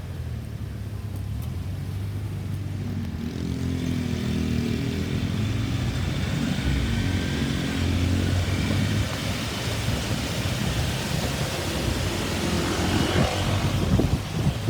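Motor vehicle engine running and drawing closer, growing steadily louder, with wind buffeting the microphone near the end.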